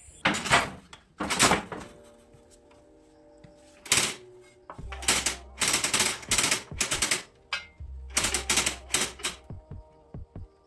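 Wooden Jacquard handloom clattering: the jacquard head and card cylinder clack in irregular bursts, with rapid runs of clacks in the second half.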